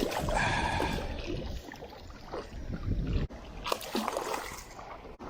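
Irregular splashing of water, louder in the first second and again around three seconds in.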